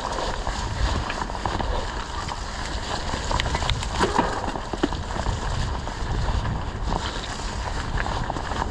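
Mountain bike riding over a dirt singletrack trail: wind buffeting the microphone with a steady low rumble, and scattered clicks and rattles from the bike.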